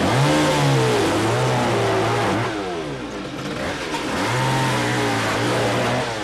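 A small petrol engine revs up twice. Each time its pitch jumps, settles a little lower and holds steady for about two seconds, with a lower, rougher stretch in between.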